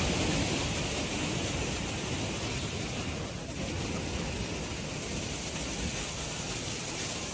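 Heavy sea waves breaking, a steady, dense rush of water noise.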